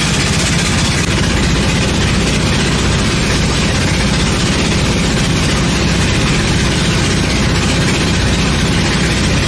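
The engine of a katinting, a small motorised wooden outrigger canoe, running steadily with a fast, even chug and a constant hiss over it as the boat cruises across the lake.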